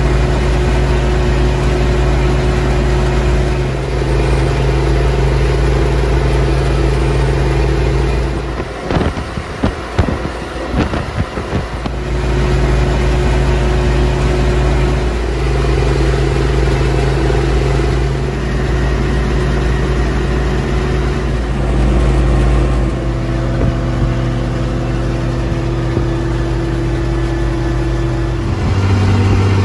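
M35A2 deuce-and-a-half 6x6 truck under way, its multifuel inline-six diesel running with a steady drone. The steady tone breaks up for a few seconds about nine seconds in, then resumes, and its pitch shifts twice near the end.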